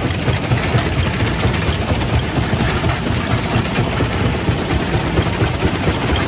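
Quarry primary rock crusher running under load: a steady heavy machine rumble with a constant clatter of rock being broken.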